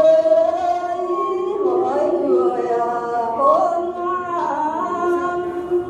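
Unaccompanied singing of a Tày lượn folk song: one voice holding long notes that waver and slide between pitches.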